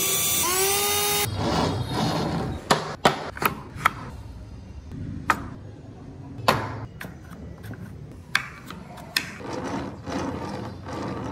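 Cordless drill motor driving a screw into a wooden model wheel, stopping a little over a second in. Then a run of sharp knocks and clicks from carved wooden parts being handled and set on the wooden chassis, and near the end the model's wheels rolling on the table.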